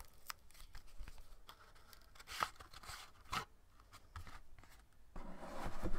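A small cardboard pack of playing cards being opened by hand and the cards slid out: faint rustling of card and paper with a few sharp snaps, the clearest about two and a half and three and a half seconds in.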